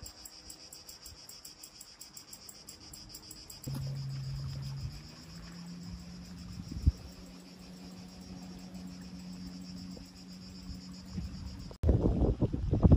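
Insects chirping in a fast, pulsing, high-pitched rhythm for the first few seconds, then a steady low hum takes over. Near the end a loud rushing noise cuts in suddenly.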